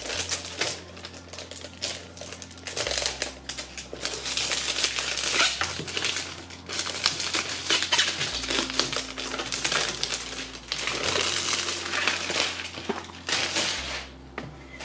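Cardboard packaging with tape being peeled and pulled apart by hand: dense crackling, ripping and clicking in uneven bursts.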